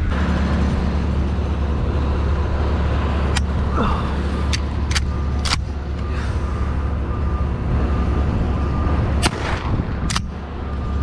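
A heavy vehicle's engine running steadily with a low hum. Several sharp cracks come through the middle and one more near the end, and a faint repeating beep sounds in the second half.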